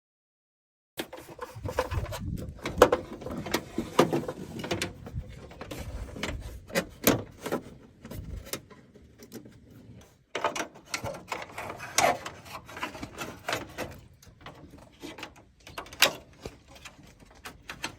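Hand-handling noise of a hood release cable being fitted into its plastic retaining clips: irregular clicks, knocks and rubbing. It starts after about a second of dead silence.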